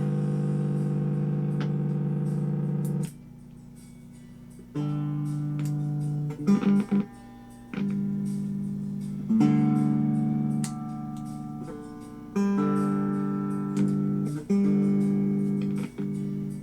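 Hofner 459 VTZ electric guitar played through an amplifier: chords struck and left to ring, several times over, with short pauses between them, as its onboard fuzz and treble boost circuits are tested.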